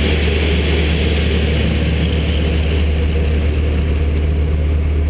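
Aerobatic propeller plane's engine and propeller droning steadily with a strong low hum, heard from inside the closed cockpit with the hiss of rushing air.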